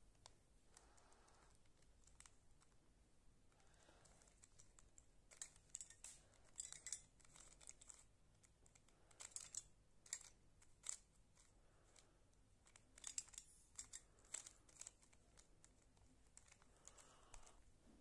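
Square-1 puzzle being twisted by hand: faint clusters of quick plastic clicks and clacks as its layers turn and slice, in bursts a few seconds apart.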